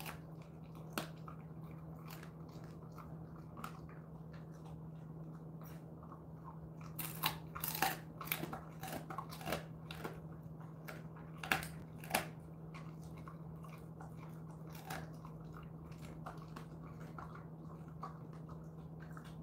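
A Jindo dog chewing and crunching a dried chicken foot. There are scattered crunches at first, then a busier run of crunches from about seven to twelve seconds in.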